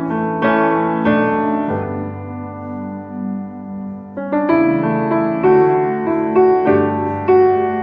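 Background piano music: a slow run of sustained keyboard notes and chords.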